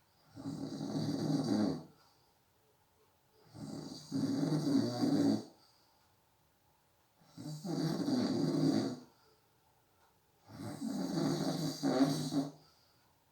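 A sleeping person snoring in a steady rhythm: four snores, each lasting one and a half to two seconds, coming about every three and a half seconds, with near quiet between them.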